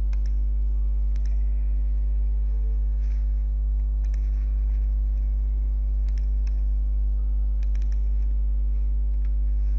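Steady low electrical mains hum, with a few faint mouse clicks.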